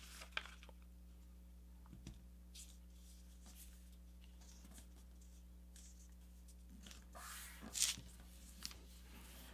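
Faint rustling and brushing of a sheet of A4 paper being folded and smoothed by hand, with a few louder swishes about seven to eight seconds in. A low steady hum sits underneath.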